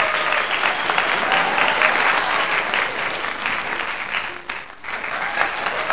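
A small group of people applauding, steady hand-clapping that dips briefly about four and a half seconds in and then picks up again.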